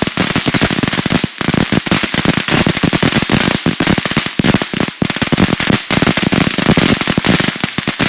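A consumer firework going off as a loud, rapid string of firecracker pops and crackles, many bangs a second without a break.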